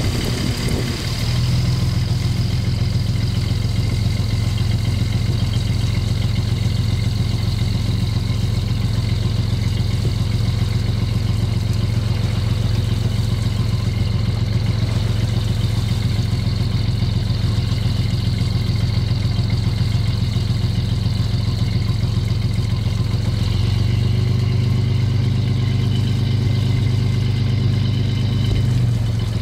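Fishing boat's engine running steadily as the hydraulic net reel winds a net aboard: a low, even hum whose pitch steps up about a second in and shifts again a few seconds before the end.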